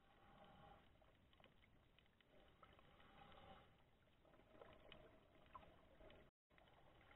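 Near silence: faint, muffled underwater noise picked up by a submerged camera, with scattered small clicks. The sound cuts out for a moment near the end.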